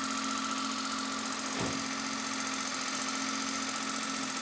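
Maruti Alto's three-cylinder petrol engine idling steadily after its oil change, heard from beneath the car, with one soft bump about one and a half seconds in.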